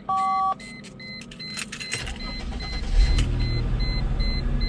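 A short electronic beep, then the 2004 Mercedes CLK 320's 3.2-litre M112 V6 cranks and fires about three seconds in, settling into a steady idle. This is the first start after a new ignition coil pack and spark plug wires on cylinder 5, and the misfire is gone.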